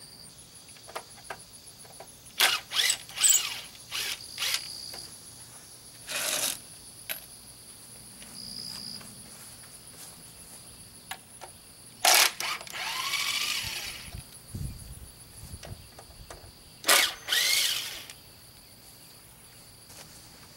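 A handheld power drill runs in several short bursts, its pitch rising as it spins up, with crickets chirring steadily in the background.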